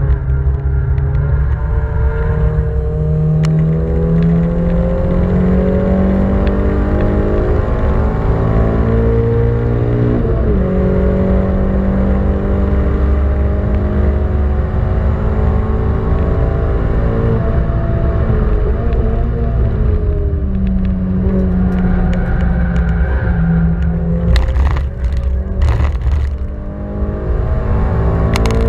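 1989 Honda Civic ED7's original four-cylinder engine heard from inside the cabin under hard acceleration on a track lap. Its pitch climbs steadily, drops at upshifts about ten seconds in and again about twenty seconds in, and the engine eases off near the end.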